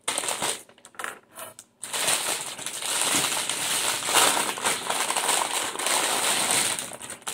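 Loud crackling rustle close to the microphone: scattered bursts at first, then continuous from about two seconds in until just before the end.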